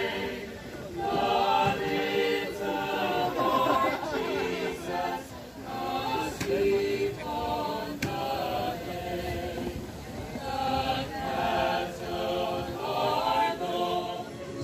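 A mixed choir of men's and women's voices singing together in phrases, with short breaks between them.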